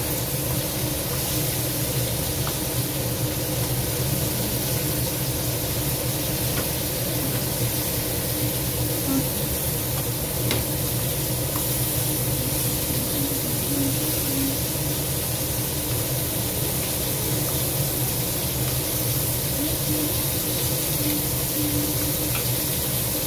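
Crab pieces frying in a wok with a steady sizzle, over a steady low hum and a few faint clicks.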